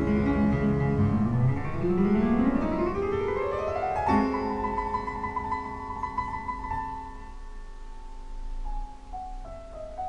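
Classical solo piano recording played back over a hi-fi system's loudspeakers. A fast run climbs up the keyboard into a chord struck about four seconds in, which rings and slowly fades under quieter notes stepping downward near the end.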